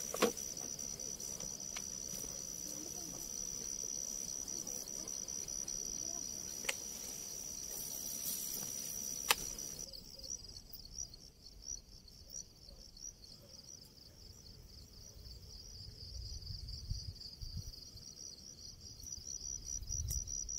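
Night insects chirring in a steady, high-pitched chorus, with a few sharp clicks in the first half. About halfway through, the chorus becomes a pulsing trill. Low rumbling comes in near the end.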